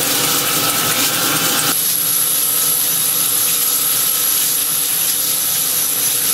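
CNC lathe turning 17-4 stainless steel with a Hertel insert under flood coolant: a steady rushing hiss of coolant spray and cutting. The insert is not breaking the chips, so long stringy chips pile up around the tool. Less than two seconds in the sound changes abruptly, and a thin steady high whine sets in and holds.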